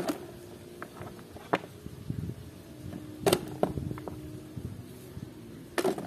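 Plastic toy animals knocking against each other and a plastic crate as they are picked up and put in: several separate sharp clacks and knocks, spread out with pauses between them.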